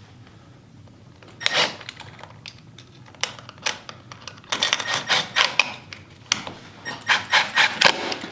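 Utility knife blade scoring the painted wood around a door's striker plate: a single scrape about a second and a half in, then runs of quick, repeated cutting strokes, several a second, over the last half.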